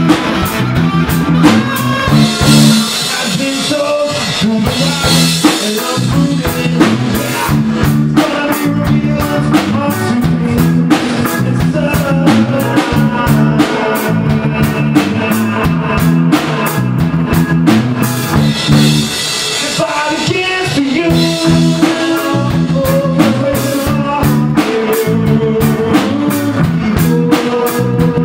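Live rock band playing electric guitar, bass guitar and drums, with a man singing at times.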